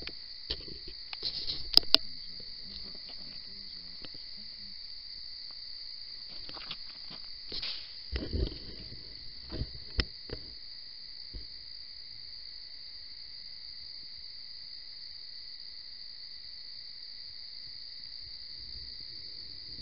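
Steady high-pitched chorus of night-singing insects. A few sharp clicks and rustles come about two seconds in and again around eight to ten seconds.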